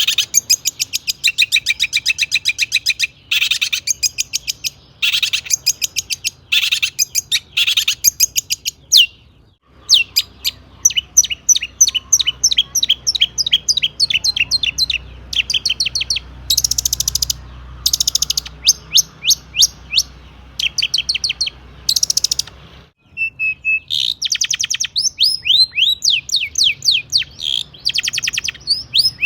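Long-tailed shrike singing a loud, rapid, unbroken song of quickly repeated sharp notes and downward-sweeping chirps, mixing in mimicked calls of other birds. The song breaks off abruptly twice, about nine and twenty-three seconds in, then resumes.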